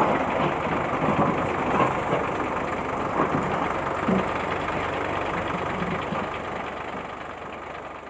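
Road roller diesel engine chugging steadily at low revs, fading out slowly near the end.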